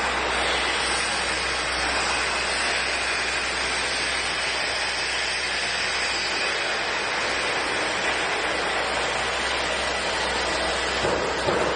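Woodworking CNC router running with its spindle engraving wood: a steady, even hiss-like machine noise. There is a brief louder swell near the end.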